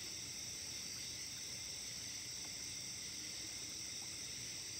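Steady high-pitched chorus of night insects, crickets and the like, running on evenly without a break.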